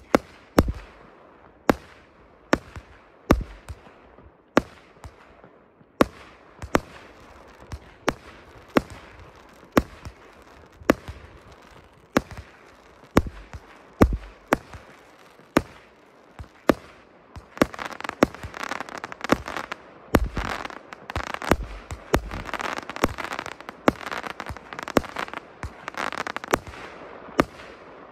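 A 306-shot consumer firework cake firing shot after shot, with a sharp bang roughly every second. A dense run of crackling begins a bit past halfway and lasts until near the end.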